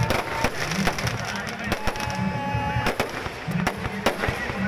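Aerial fireworks bursting overhead: an irregular string of sharp bangs and crackles.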